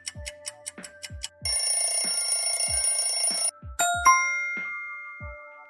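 Quiz countdown timer sound effects: clock ticking over a light beat, then a loud ringing, like an alarm bell, for about two seconds, then a single bright chime that slowly fades.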